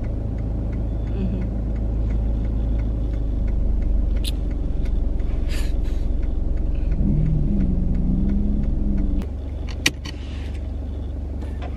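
Car road noise heard from inside the cabin: a steady low rumble that drops off about nine seconds in, with a sharp click shortly after.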